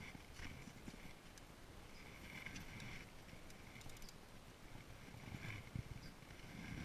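Faint wind rumble on the microphone while a spinning reel is cranked against a hooked fish, with short patches of soft reel whirring and a few light handling clicks.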